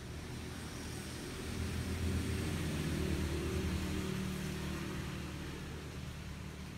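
A motor vehicle's engine going by: a low hum that builds over the first couple of seconds, is loudest around the middle, then slowly fades, over a steady hiss.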